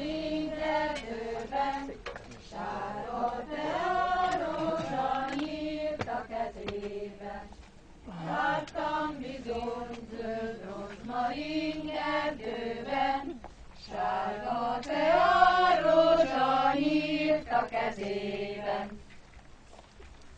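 A choir, mostly women, singing a Hungarian folk song without accompaniment, phrase after phrase with short breaks for breath; the singing ends about a second before the end.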